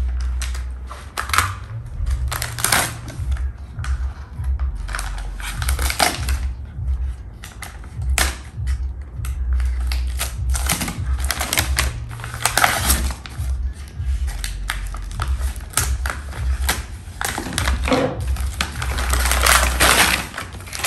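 Plastic courier mailer bag being cut with scissors and then torn and pulled open by hand: a run of irregular crinkling, rustling and ripping, loudest in a few bursts of tearing.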